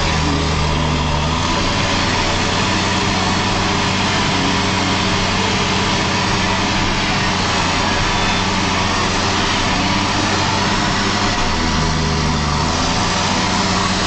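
John Deere 6920S tractor's six-cylinder diesel running steadily under load, pulling a five-furrow Dowdeswell plough. Its lowest note drops deeper briefly near the start and again near the end.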